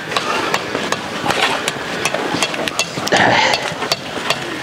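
Building-site work on concrete-block walls: many sharp, irregular taps and knocks of masons' tools on blocks, with a louder brief noise about three seconds in.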